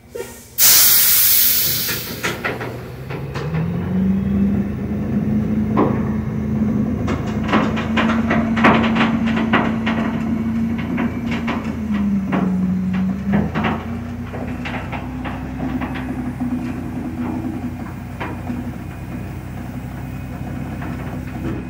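Heavy truck hauling a shipping container: a loud hiss of released air from its air system about half a second in, then the engine revs up and holds steady, sagging briefly near the middle before picking up again. Scattered metallic clanks and knocks from the trailer and load.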